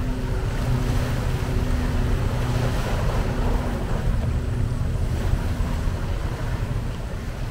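Sea waves washing and splashing against the foot of a concrete seawall, under a steady rumble of wind buffeting the microphone.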